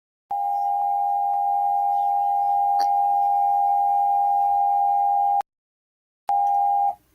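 Emergency Alert System alert tone: one steady electronic tone held about five seconds, cut off, then sounding again briefly for about half a second.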